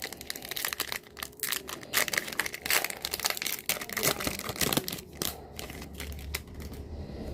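Foil trading card pack wrapper crinkling as it is handled and torn open, with a dense run of irregular crackles that thins out near the end.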